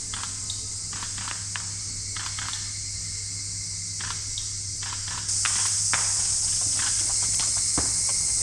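Insects droning in a steady high hiss that gets suddenly louder about five seconds in, with scattered light footsteps and rustling through vegetation.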